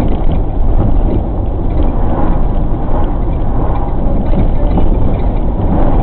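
Motorhome on the move: a loud, steady drone of engine and road noise with irregular rattling and clattering throughout.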